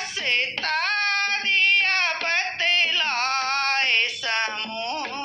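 A woman singing a Hindi devotional song alone, drawing out long held notes that bend and slide between pitches, with short breaths between phrases.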